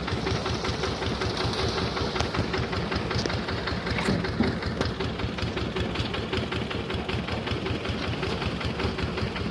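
Engine of a concrete mixer (lenter) machine running steadily with a fast, even knock.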